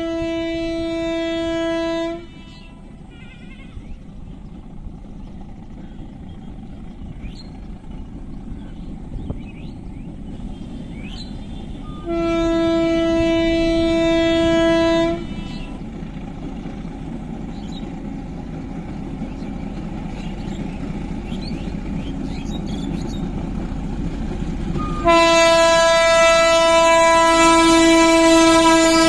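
Diesel locomotive horn sounding three long single-note blasts of about three seconds each, about ten seconds apart, while the train's engine and wheel rumble grows steadily louder as it approaches. The last blast, near the end, is the loudest as the locomotive draws close.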